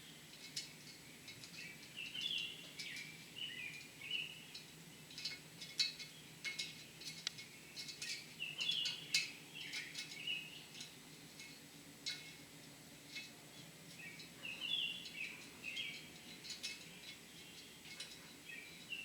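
Small birds chirping again and again in short rising and falling notes, mixed with scattered sharp metallic clicks and taps from hand tools working the valve springs and keepers on a cylinder head.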